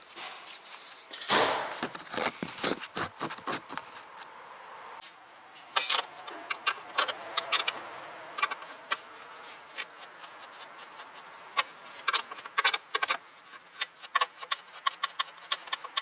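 Irregular clicking and rattling knocks from a Toyota Esquire while it is driving, bunched about a second in and then scattered: the running noise that the owner puts down to a shock absorber.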